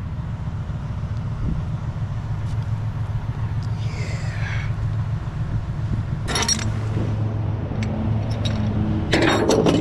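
Engine idling with a steady low rumble. A sharp metallic clank comes a little past six seconds in, and a quick run of metal clatters near the end.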